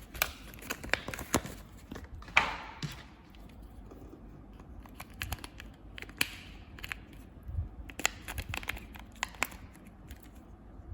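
Energizer AA battery pack being opened by hand: cardboard and plastic tearing and crinkling, with a string of sharp clicks and rustles and one louder rip about two seconds in.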